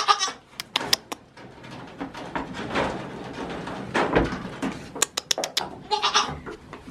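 Goat bleating, a short call right at the start and another about six seconds in, with sharp clicks and knocks and rustling as a wooden wire-mesh door is handled.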